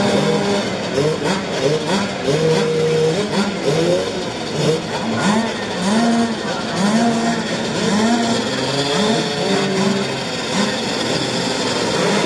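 A line of two-stroke motocross bikes revving at the start gate, several engines blipped up and down in pitch over one another as the riders hold them ready for the start.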